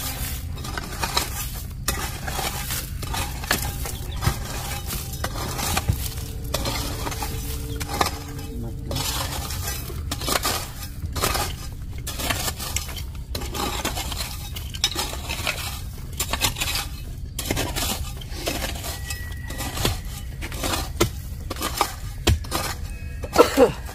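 A metal tool scraping and clinking against stones, stroke after stroke in an irregular run, over a steady low rumble.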